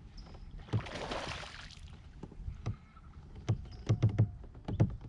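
Handling noise in a plastic fishing kayak: a rush of noise lasting about a second, then a quick run of sharp knocks and thuds against the hull in the second half.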